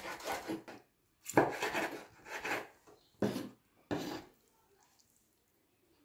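Kitchen knife slicing through a peeled orange on a wooden cutting board: a series of short cutting strokes, the blade rasping through the fruit and scraping on the wood.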